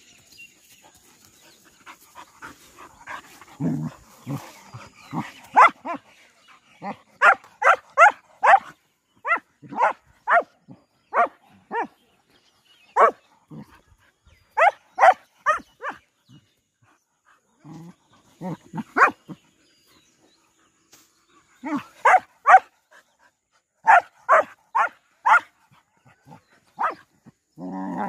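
Dogs play-fighting: short, sharp, high barks and yelps in quick runs of three to five, with pauses between the runs, after lower growling about four seconds in.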